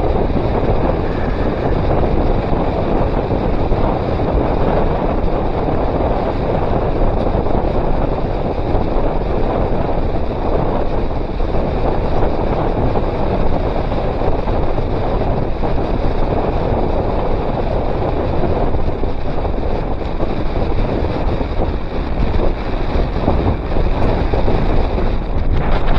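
Wind buffeting the action camera's microphone on a fast bicycle descent at about 25 mph: a loud, steady rush that never lets up.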